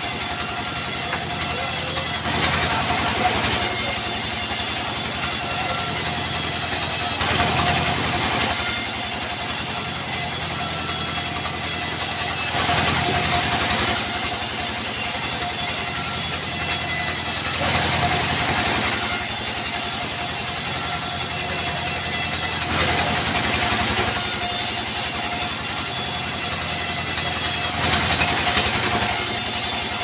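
Sawmill band saw running steadily with a constant whine as a log is fed through the blade to cut planks. A louder surge of sawing comes about every five seconds, six in all.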